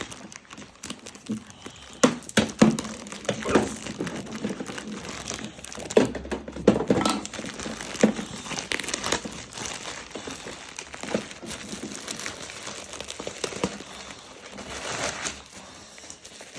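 Plastic packaging bags crinkling and rustling as they are handled, with sharp irregular crackles and an occasional tearing sound.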